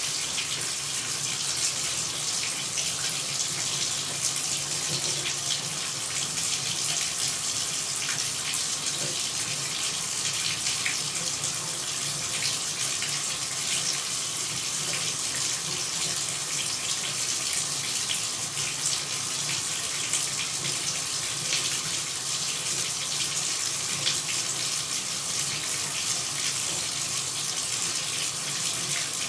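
Running water pouring steadily, a constant even hiss with no breaks or changes.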